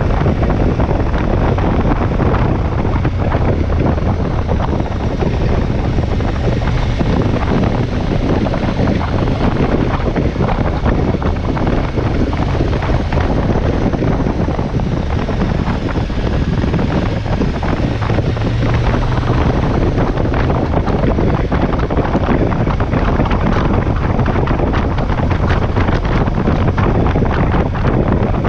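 Wind buffeting the microphone of a camera on a moving motorcycle, over the steady running of the KTM 1190 Adventure's V-twin engine at road speed.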